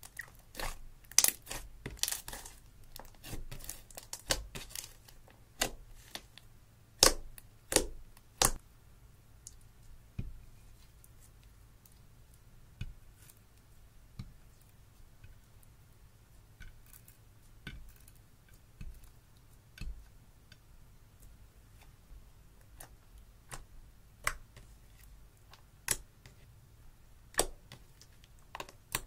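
Hands squishing, folding and pressing glossy slime, making irregular sticky clicks and pops as it pulls apart and traps air. The pops come thick and fast over the first several seconds, then more sparsely.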